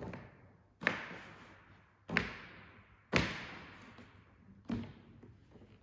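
Latches on a hard plastic rifle case snapping open one after another: four sharp clacks spaced about a second apart, each fading quickly.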